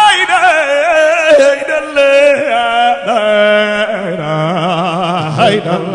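A man sings a solo line of a Sufi zikr chant into a microphone, in long ornamented notes with a wavering vibrato, over a low steady hum.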